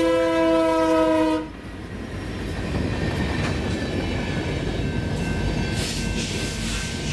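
Diesel locomotive air horn sounding a steady chord of several notes that cuts off about a second and a half in, followed by the rumble and wheel noise of the passing train.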